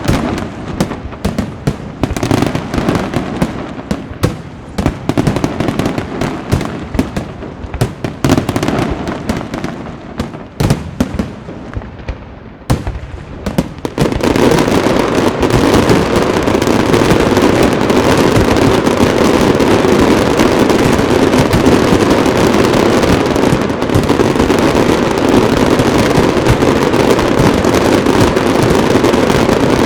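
Aerial fireworks going off in a rapid string of sharp bangs and crackles. About halfway through, the bangs suddenly merge into a dense, continuous barrage that stays loud to the end.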